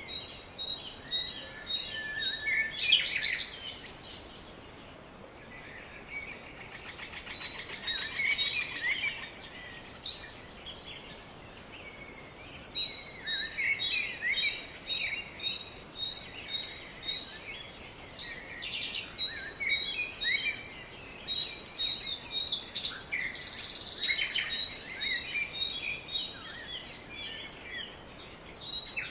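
Several birds chirping and singing, one repeating a short high note a few times a second, with a pause in that series partway through, over a steady background hiss.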